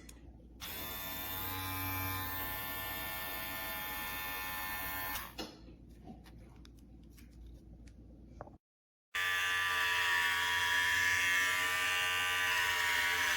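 Cordless electric hair clipper running with a steady buzz, twice: for about four seconds starting near the first second, then again, louder, from about nine seconds in.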